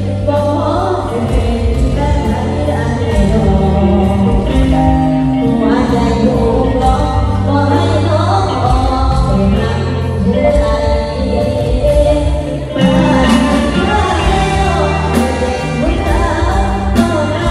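A girl singing live into a microphone over a loud backing track played through PA speakers, with steady bass notes and a regular drum beat under her melody.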